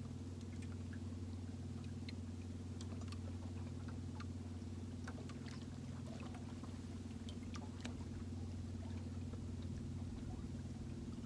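Boat motor running steadily at slow trolling speed, a low even hum, with faint scattered ticks over it.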